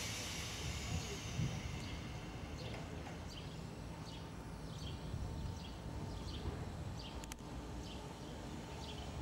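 A small bird chirping over and over, short high chirps about every two-thirds of a second, over a low steady rumble with a faint steady tone, from an electric multiple unit standing at the platform.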